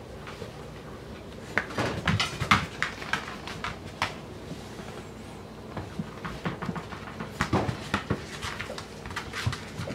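Llewellin setter puppies scuffling at play over a plush toy: scattered claw clicks, scrapes and knocks on the kitchen floor, in two busy spells with a quieter stretch between.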